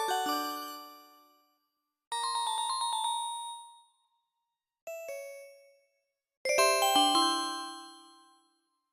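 LG AD5235 mobile phone ringtone: four short runs of quick, bell-like synthesized chime notes, each run fading away, with short silences between.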